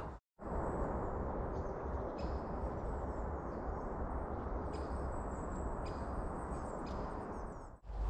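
Forest ambience: a steady, even background rustle with a few faint, short bird chirps scattered through it.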